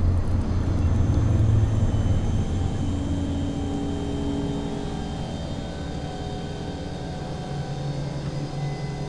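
A low rumbling drone, loudest in the first two seconds and easing off, with held tones at several pitches coming and going over it, as in a film's suspense soundtrack.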